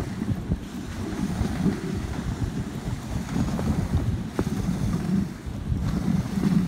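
Wind buffeting the microphone over the noise of a dog sled's runners sliding on packed snow, with a few sharp knocks from the sled.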